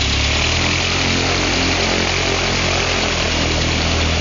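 Jabiru air-cooled aircraft engine turning its propeller on a ground run, running steadily with its note dropping slightly about half a second in. It keeps running after the fuel has been shut off in a fuel-cut test.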